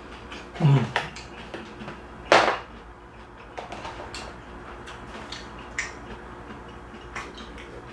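A short low vocal sound falling in pitch, then a sharp breathy burst. After that come light rustles and taps as a plastic soup pouch is handled and set down on a table.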